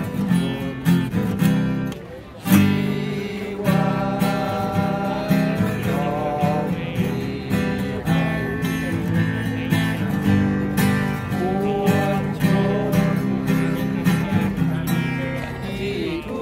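Acoustic guitar strummed in a steady rhythm, with a wavering melody line carried over the chords.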